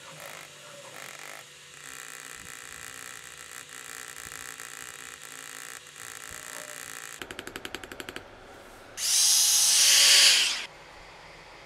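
Engraving tools working a silver inlay on a metal plate: a steady low-level working sound, then a quick run of even taps, about a dozen a second, for about a second. A loud hiss follows for nearly two seconds.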